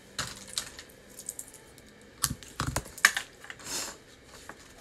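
Scattered light taps, clicks and a brief rustle of hands handling cardstock and ribbon on a table, the sharpest tap about three seconds in.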